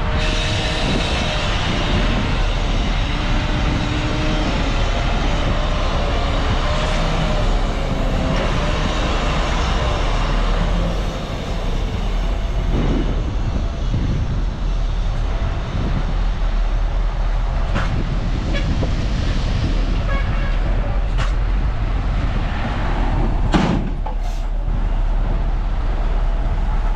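Bulldozer working: its diesel engine running under load with a steady low rumble, a wavering whine in the first several seconds, and a few sharp knocks in the second half.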